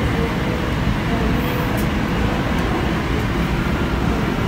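Steady low rumbling background noise, even in level, with no speech.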